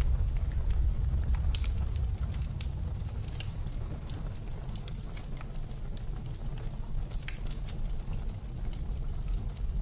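Wood fire crackling, with irregular sharp pops and snaps, over a steady low rumble of blizzard wind.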